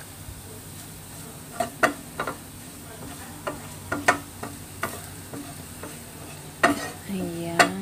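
Wooden spatula scraping and tapping irregularly across a nonstick frying pan as minced garlic is pushed into a pile, over a faint sizzle of the garlic in oil. The burner has just been switched off, and the garlic is finishing in the pan's leftover heat.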